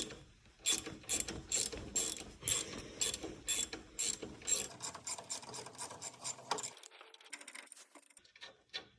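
Ratchet clicking in repeated quick runs as a 13 mm bolt is backed out of a brake line bracket; the clicks thin out near the end.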